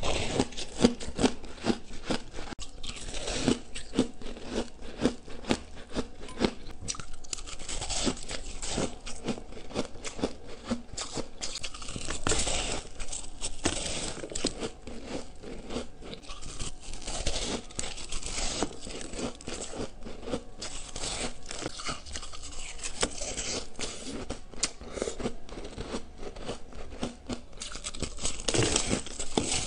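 Crunching and chewing of a frost-coated block of ice, bitten close to the microphone: many quick crackling crunches packed closely together, bite after bite.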